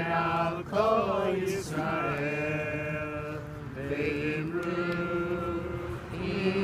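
Unaccompanied singing of a Hanukkah song, in long held notes.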